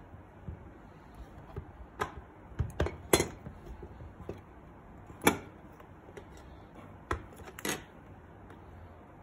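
Several knocks and clatters of hard plastic electronics being handled and set down on a wooden tabletop: a small circuit-board module and a tablet-sized Dahua intercom monitor. The two loudest knocks come about three seconds and five seconds in.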